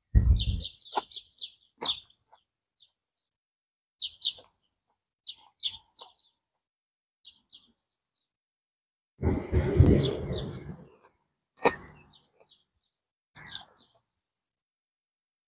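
Small birds chirping in short high runs, mixed with the clicks and smacks of someone eating close to a clip-on microphone. About nine seconds in there is a louder low rustling burst lasting a couple of seconds.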